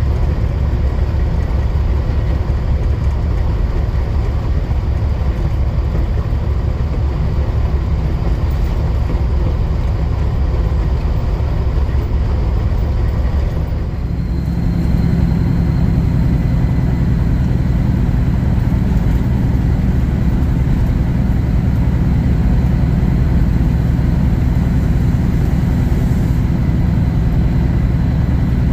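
Semi truck driving, heard from inside the cab: a steady low engine drone with road noise. About halfway through, the engine note grows stronger and clearer.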